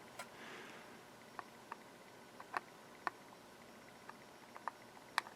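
Faint, scattered small clicks and ticks, about ten irregularly spaced, the sharpest near the end: small hand tools working at a circuit board while a jumper wire is trimmed.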